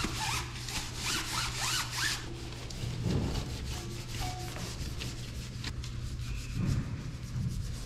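A cloth rubbing along a bicycle wheel's rim and tyre as it is wiped clean, an irregular scratchy swishing with short squeaks in the first two seconds.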